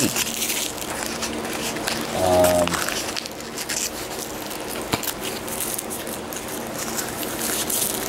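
A short held hum from a man's voice, a hesitation sound, about two seconds in, over a steady background hiss. There is a faint click near the middle.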